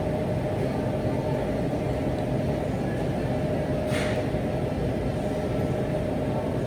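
Steady mechanical hum of supermarket machinery, such as refrigerated cases and ventilation, with a faint steady tone; a brief click or rustle about four seconds in.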